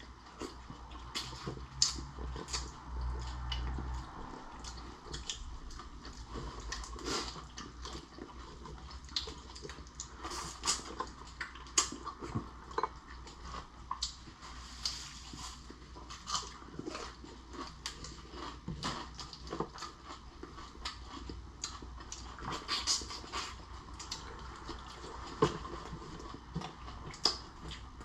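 A person eating cooked shrimp and lobster close to the microphone: chewing and biting, with many irregular sharp clicks and smacks.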